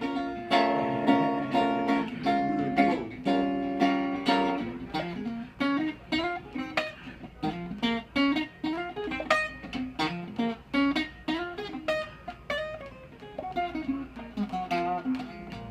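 Hollow-body archtop guitar being picked: chords for the first few seconds, then single-note melodic lines.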